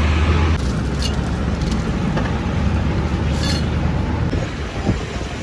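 A motor vehicle's engine running with a loud low rumble that drops off sharply about half a second in and carries on more quietly, with a few light metallic clicks over it.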